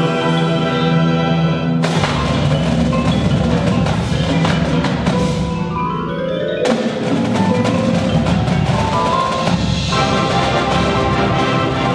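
Marching band of brass, woodwinds and percussion playing a field show. Sustained chords give way about two seconds in to a loud full-band passage with percussion. A rising run follows around five to six seconds in, then the full band comes back in loud just before seven seconds, settling into held chords near the end.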